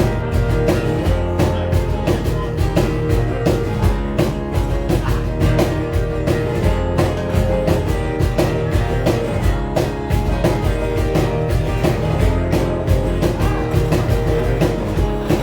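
Live rock band playing, with a drum kit keeping a steady beat under guitar and bass.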